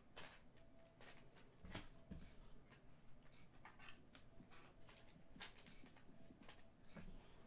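Faint, irregular clicks and rustles of trading cards and card packs being handled and flipped through. A faint high tone breaks on and off behind them.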